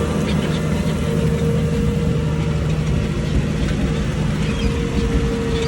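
Ford 8340 tractor's six-cylinder diesel engine running steadily under load while pulling a plough, with a steady whine above its drone.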